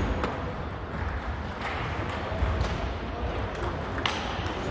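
Table tennis ball clicking sharply off bat and table a few times, the clearest click about four seconds in, with the sound ringing in a large sports hall.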